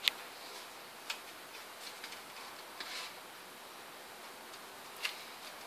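Handling noise: a sharp click near the start, then a few fainter clicks and a light rustle, as hands set down and handle a small rechargeable LED lantern and its parts on a tabletop, over a low steady hiss.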